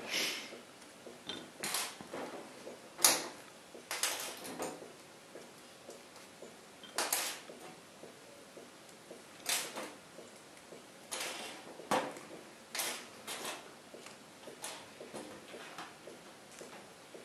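Bent paper-clip hooks being pulled from strips of dried chicken and dropped onto a stainless-steel worktop: scattered light metal clicks and clinks, roughly one every second, irregularly spaced.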